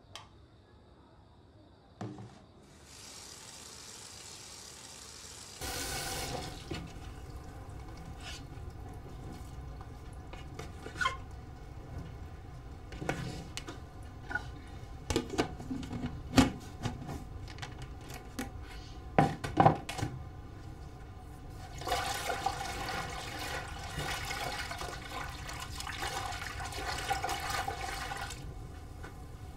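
Water running and splashing as someone washes by hand in a basin on a bathtub, with sharp knocks and splashes from handling. A faint hiss comes first, and the water comes in fuller about six seconds in, swelling near the end.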